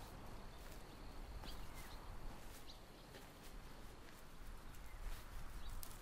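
Faint open-air ambience: a low, even hiss with a few faint short chirps and clicks scattered through it.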